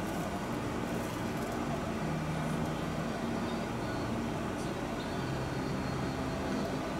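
Steady low hum of a vehicle engine running, its pitch shifting slightly now and then.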